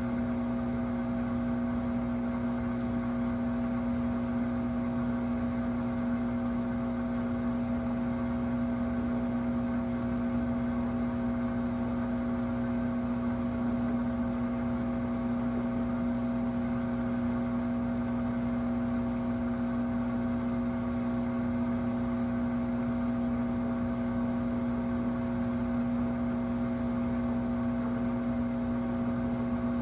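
Samsung WW25B6900AW/A2 front-load washer giving off a steady, loud buzz with one strong low tone and no change in level. This is an abnormal noise that the owner says the washer has made since its first month.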